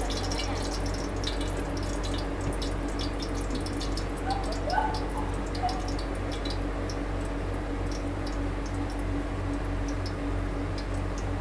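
Hot oil sizzling and crackling steadily at a fried fish-ball cart, over a low hum.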